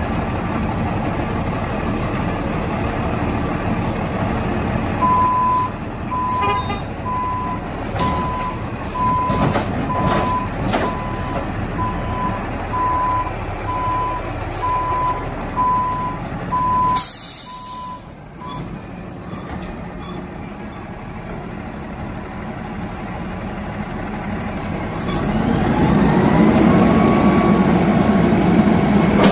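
Front-end loader garbage truck with a McNeilus body: its diesel runs throughout while the reversing alarm beeps about once a second for some thirteen seconds, with a short hiss of air brakes near the end of the beeping. Near the end the engine revs up and a rising hydraulic whine comes in as the forks lift a commercial bin over the cab.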